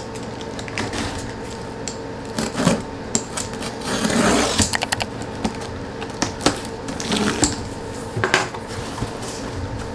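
Cardboard shipping box being opened by hand: irregular clicks, taps and scrapes of cardboard and packing tape, with a longer rustle about four seconds in.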